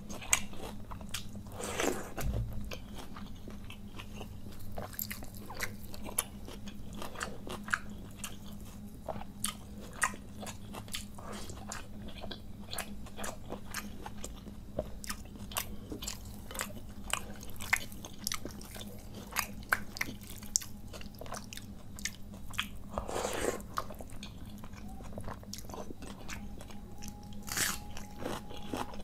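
Close-miked eating sounds of a person eating soaked rice by hand: steady chewing with many small wet clicks and smacks. Near the end comes a sharper crunchy bite, into a raw onion.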